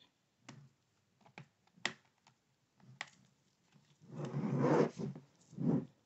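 Plastic pry tool working along the seam of a laptop's plastic bottom cover: a few sharp clicks as the cover's clips pop free, then a scraping rub as the tool slides along the edge, about four seconds in and again near the end.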